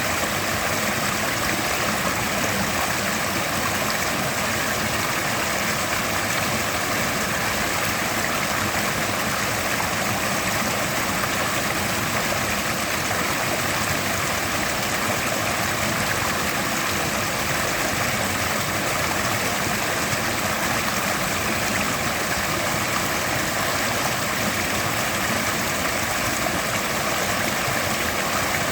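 Mountain river rushing steadily over rocks, a dense, unbroken wash of water noise.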